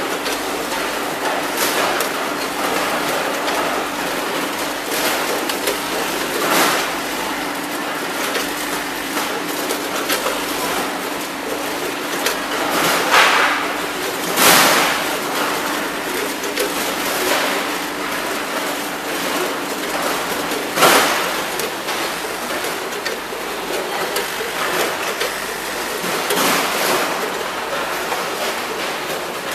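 A multihead combination weigher running with shrimp, giving a steady hum and rushing noise. Now and then there is a clack or rattle as the weigh-bucket gates swing open and drop shrimp into the stainless discharge chutes.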